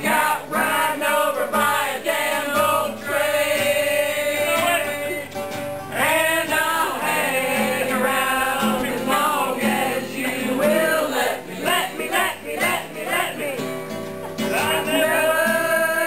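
A roomful of people singing along together to a country-and-western song, male voices prominent, with guitar accompaniment.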